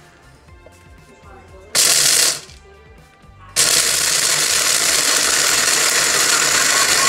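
Countertop blender chopping a jarful of chocolate chips: one short burst about two seconds in, then running steadily from about halfway on.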